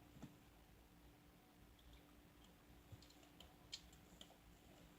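Near silence: a few faint, scattered clicks over a low, steady hum.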